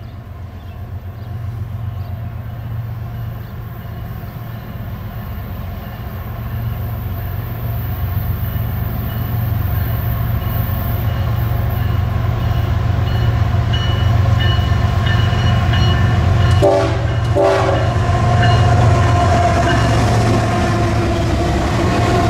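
Several GE diesel-electric freight locomotives approaching and passing close by, their low engine drone growing steadily louder. Two short horn blasts come about three-quarters of the way through, and the lead units then pass loudly.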